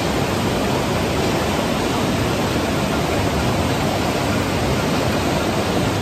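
River white water rushing over rocks: a steady, unbroken wash of noise.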